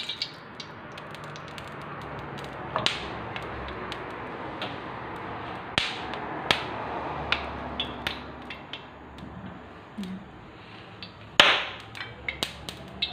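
Cooking oil heating in a stainless-steel wok: a low steady hiss with scattered sharp clicks and pops, and one louder knock about eleven seconds in.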